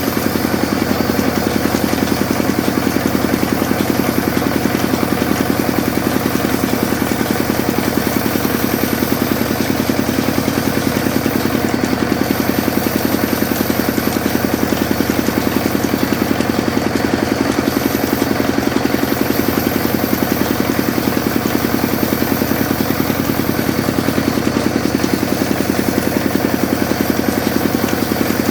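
Sawmill machine running steadily, with a loud, even hum and a fast, dense pulsing like an engine.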